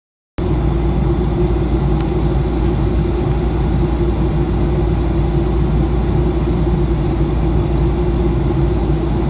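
Steady in-flight cabin noise of a Boeing 737-800, from its CFM56-7B jet engines and the rushing air, with a steady low hum. It cuts in abruptly about half a second in.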